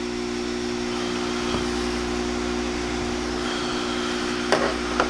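Hot air rework station's blower running steadily, a low hum under the hiss of air from the nozzle as it heats a connector's pins to desolder it. Two short clicks near the end.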